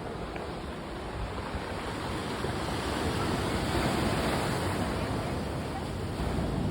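Mediterranean sea waves breaking and washing onto the beach, a steady rush that swells about three to four seconds in and then eases off.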